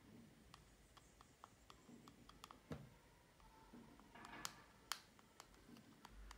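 Faint scattered clicks and light scraping as a plastic card is pressed and slid along the edges of a hydrogel screen protector on a smartwatch screen, with a brief scrape a little after four seconds in and a sharper click just after it.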